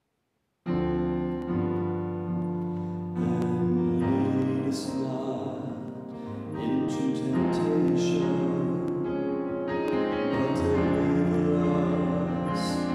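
Keyboard music of held chords and notes, starting abruptly about half a second in and playing on steadily.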